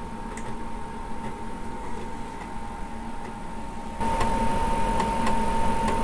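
Amiga 2000's 3.5-inch floppy drive with a disk just inserted: faint ticks about once a second, then about four seconds in the drive starts up with a steady hum and a few sharp clicks as it begins reading the disk.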